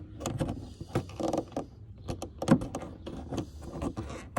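Rear swing-out window latch arm and its retaining clip being handled and fitted by hand: a scattered series of small clicks and knocks.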